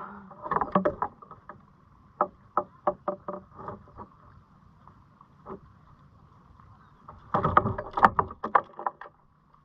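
Knocks and clicks of a trout and gear being handled on a fishing kayak's deck and measuring board, with a louder burst of clattering about seven seconds in.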